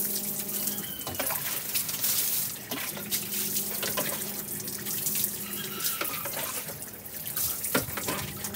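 Water running off a concrete washing slab and splashing onto the ground below while a wet dog is washed, with scattered splashes and drips.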